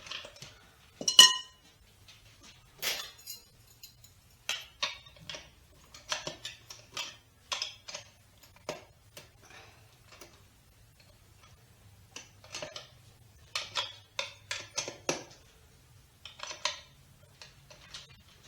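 A utensil clinking and scraping against a bowl, with one loud ringing clink about a second in, then irregular runs of short taps and scrapes.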